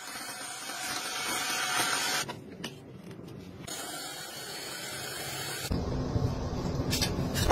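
Cleaning gadgets at work in quick succession, the sound changing abruptly every couple of seconds: a steady hiss that builds and cuts off about two seconds in, a second stretch of hiss, then a lower rushing noise near the end.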